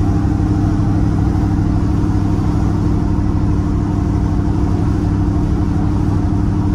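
Ford 2014 Coyote 5.0 L V8 in a 1967 Ford F100 pickup cruising at a steady speed, engine drone and road noise heard from inside the cab at an even pitch.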